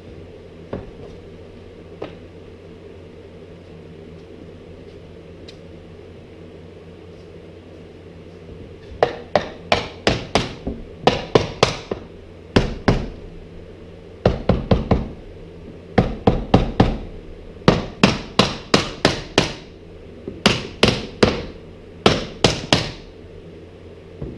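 Hammer blows on wood, in quick runs of several strikes with short pauses between, over a steady low hum.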